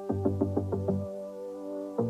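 Background music: an electronic synth track with a quick, even pulse of notes over a bass line that drops out about a second in.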